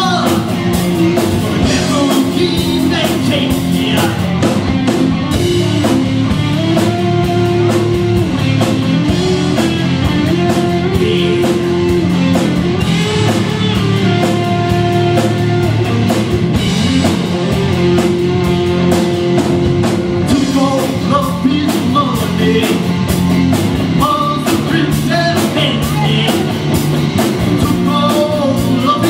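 Live rock band playing loudly: electric guitar, bass guitar and drum kit, with held, stepping melody notes over a steady beat.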